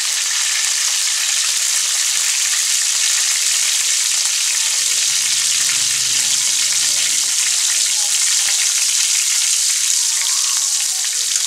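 Minced garlic sizzling steadily in hot cooking oil in a wok over a low flame, being fried until golden and fragrant.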